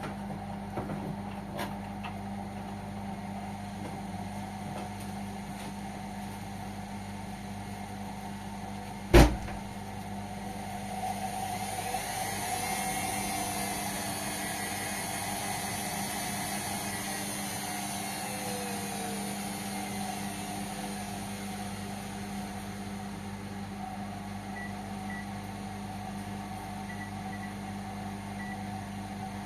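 Indesit washing machine running its cotton 60° programme: a steady hum throughout, a single sharp click about nine seconds in, then a hissing, swishing swell that builds from about eleven seconds and slowly dies away.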